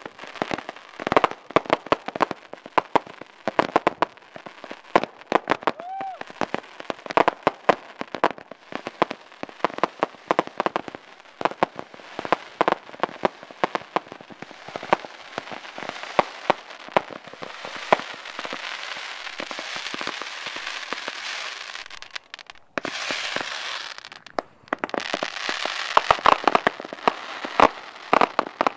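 Fireworks going off: a fast, irregular run of sharp pops and bangs from fountains and cakes firing. Over the second half a thick crackling hiss fills in between the bangs, dropping out briefly a few seconds before the end.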